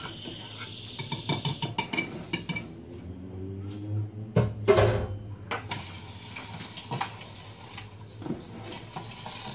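Wire whisk clicking against a small metal saucepan of chocolate cream in a quick run of taps. Then come a few louder knocks and clinks of kitchenware being set down, the loudest about five seconds in, and a few single clinks near the end.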